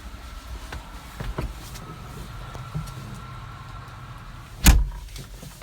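A loud thump about three-quarters of the way through, typical of the Bobcat Toolcat's cab door being shut, over a steady low hum with a few small knocks.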